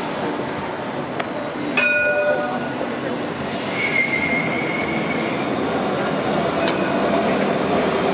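Rail vehicle running past with a steady rumble, a short pitched tone near two seconds in, and a high steady wheel squeal from about four to five and a half seconds in.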